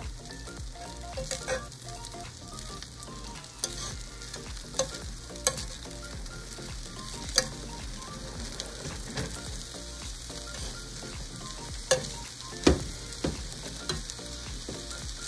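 Metal spoon stirring and scraping rice and mixed vegetables in a nonstick sauté pan, with sharp clinks of the spoon against the pan now and then over a sizzle from the hot pan.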